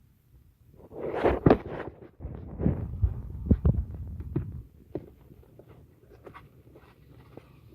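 Hands working at a part under a car's dashboard: a run of knocks, clicks and rustling about a second in, dying away to a few faint clicks by the middle.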